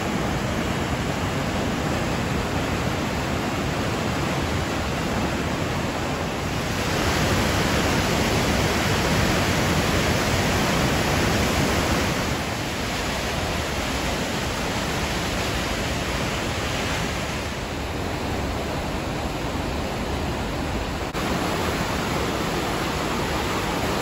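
River whitewater rushing and cascading through a narrow rock gorge, a steady rushing noise that swells for a few seconds near the middle.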